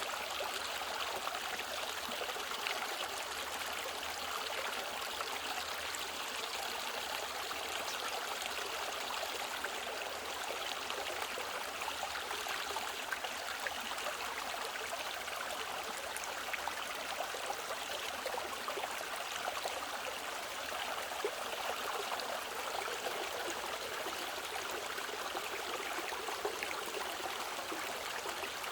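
Mountain stream flowing over rocks: a steady rush of water with small splashes and trickles.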